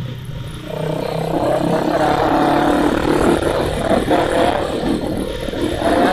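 Motorcycle engine running while riding, easing off briefly just after the start and then pulling harder as it accelerates, over steady wind and road noise.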